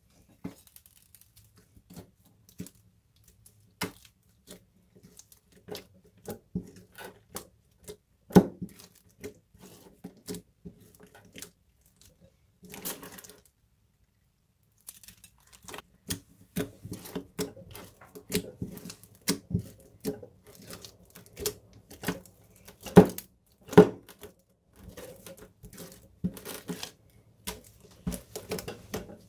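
Slime being squeezed, stretched and mixed by hand, with many small sharp pops and clicks. There is a short crinkle about halfway through, then a pause of a few seconds, and the popping returns denser.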